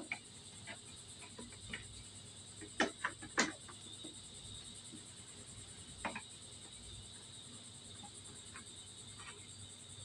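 Small clicks and taps of a screwdriver working screws out of a scooter's plastic front panel, with a cluster of sharper ticks about three seconds in and another about six seconds in. A steady high-pitched drone runs underneath.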